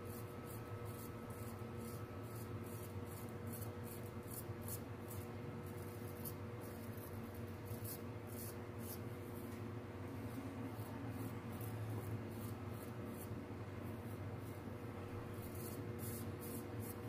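Straight razor scraping through lathered stubble in a run of short strokes, sparser in the middle. A steady low hum lies underneath.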